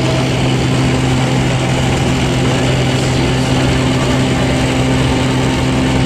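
Small jump plane's engine and propeller droning steadily, heard from inside the cabin in flight.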